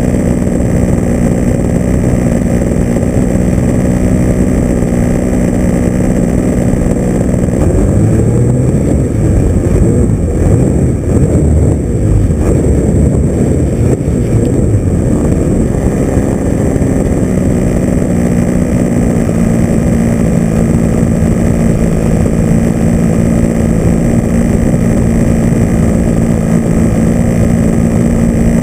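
Electric motor and propeller of a radio-controlled FPV aircraft running steadily in flight, with rushing air. About eight seconds in, the hum wavers and roughens with throttle changes and wind, then settles back to a steady drone after about sixteen seconds.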